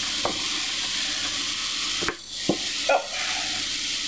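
Wooden spoon stirring a moist tuna, pasta and vegetable mixture in a glass baking dish: a steady wet rustling hiss, broken by a few knocks of the spoon against the glass.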